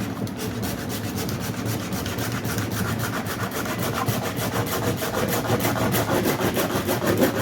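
Hand-held pocket surform plane rasping old Bondo body filler away in quick back-and-forth strokes. The strokes get faster and a little louder about three seconds in, to roughly five a second.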